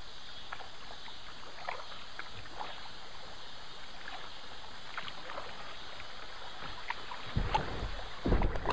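Kayak paddling on a river: an even wash of moving water with scattered small splashes and drips from paddle strokes. Low rumbling surges come in near the end.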